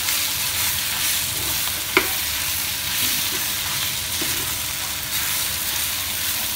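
Potato and pea stuffing sizzling in oil in a stainless steel pan while a steel spatula stirs and scrapes through it, with one sharp clink of the spatula against the pan about two seconds in.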